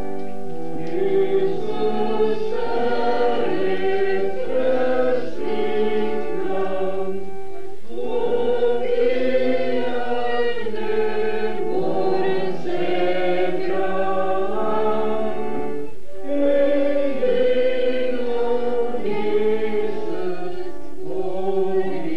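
A group of people singing a hymn together in long held notes, phrase by phrase, with short breaks between phrases.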